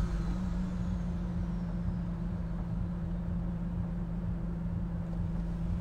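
Steady low hum of a car heard from inside its cabin.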